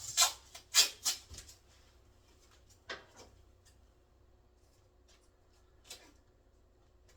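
Adhesive tape being pulled off the roll in short scratchy rips: three loud ones in the first second or so, then a fainter one about three seconds in and another near six seconds.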